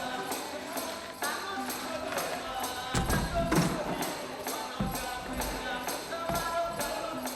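Background music with a steady, quick percussion beat of about three ticks a second under a melody, with a few deeper thumps in the middle.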